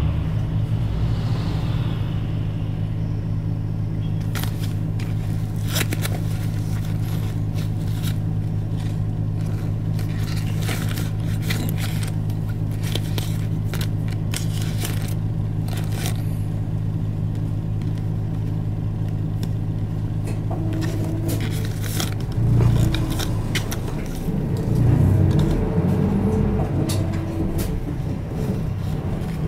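Isuzu Erga Mio city bus's four-cylinder diesel idling steadily while the bus stands still, heard from inside the cabin, with scattered clicks and rattles. About 22 seconds in, the engine note rises and falls as the bus pulls away.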